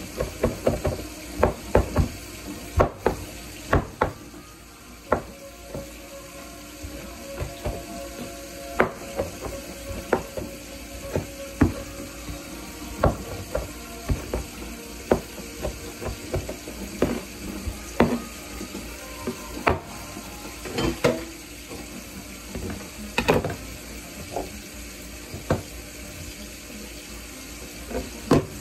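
Chef's knife dicing tomato on a countertop: irregular sharp knocks as the blade strikes the counter, roughly one to two a second.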